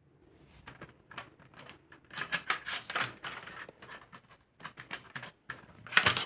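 Plastic parts and packaging being handled: irregular rustling and sharp clicks that start faint and grow busier and louder, loudest near the end.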